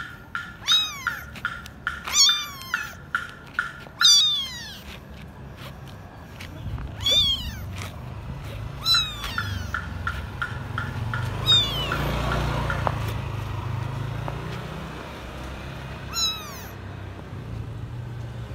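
Young kitten mewing over and over, a string of high-pitched cries that fall in pitch, most frequent in the first few seconds.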